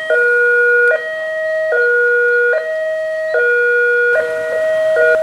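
Indonesian railway level-crossing warning alarm: an electronic two-note tone alternating high and low about every 0.8 seconds, sounding while the barriers are down to warn of an approaching train.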